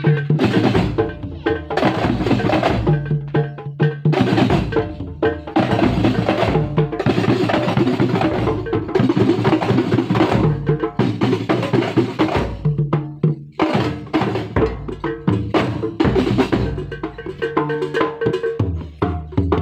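Kuntulan percussion ensemble playing a fast, dense rhythm on rebana frame drums and other drums, with held pitched notes sounding underneath.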